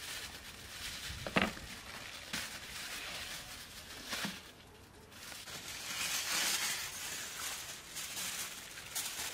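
Aluminium foil rustling and crinkling as it is handled, with a few light knocks in the first half.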